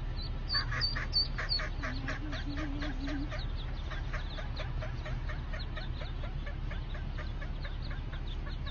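A brood of mallard ducklings peeping rapidly, many short falling peeps about four or five a second. A few louder peeps come in the first second and a half, over a steady low rumble.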